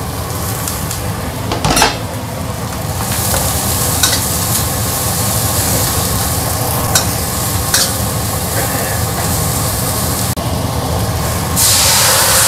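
Vegetables and egg sizzling in a hot stainless steel wok while a metal spatula stirs and scrapes, with a few sharp clicks of the spatula on the wok. Near the end, water poured in from a pot hisses loudly on the hot metal.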